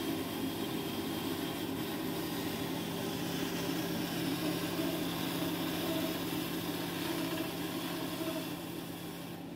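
Schaublin 102VM lathe running steadily, spindle turning in reverse while a boring tool cuts an internal taper in a metal part, with a constant motor hum that eases a little near the end.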